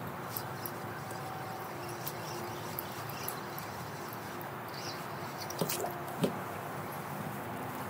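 Fishing reel cranked steadily on a lure retrieve: a soft continuous whir with a faint hum, and a few small clicks between five and a half and six seconds in.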